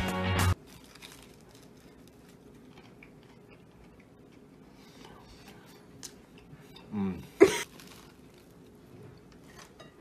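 Quiet room tone after background music cuts off about half a second in. About seven seconds in comes a short voiced sound, then a single loud cough from a person eating a grilled cheese sandwich.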